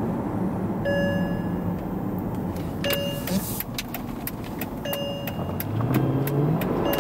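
Inside the cabin of a 2009 Mercedes-Benz S63 AMG on the move with the windows up: steady road and engine noise, with the seatbelt warning chime dinging three times, about two seconds apart, because the driver's belt is unbuckled. Near the end the 6.2-litre V8 revs up, rising in pitch, as the car accelerates.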